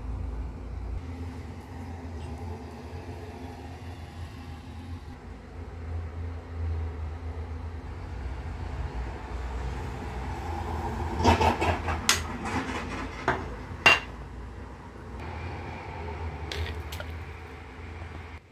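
Kitchen handling sounds over a steady low hum. In the second half a spoon or utensil strikes a cooking pot or bowl with several sharp clinks, the loudest a cluster of four or five about two-thirds through.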